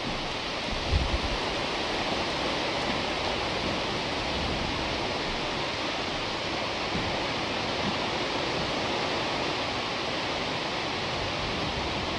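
A steady, even hiss like rain or rushing water, with a few low bumps about a second in.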